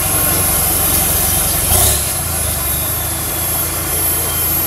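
Off-road 4x4 vehicle's engine running steadily at low revs, with a steady high-pitched tone over it. A brief louder burst comes a little under two seconds in.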